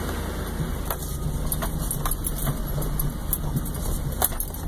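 Vehicle engine and tyres rumbling steadily, heard from inside the cab while driving slowly over a rough, rocky dirt trail, with scattered knocks and rattles from the jolting ride.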